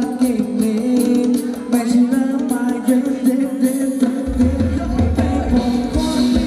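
A live band plays Thai ramwong dance music, with a singer over steady percussion. A heavy low bass beat comes in about two-thirds of the way through.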